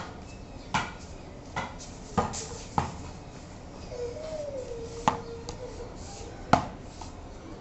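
A ball knocking against a cricket bat and a hard floor: six sharp, irregularly spaced knocks, the loudest two near the end.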